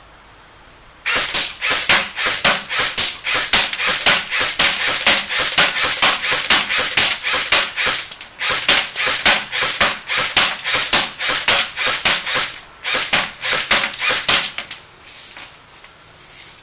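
JG M5-S6 electric airsoft gun (an MP5-style AEG) firing on semi-auto, shot after shot in quick trigger pulls at about four a second. It starts about a second in, breaks off briefly about eight seconds in, and stops near fourteen and a half seconds after a few last shots.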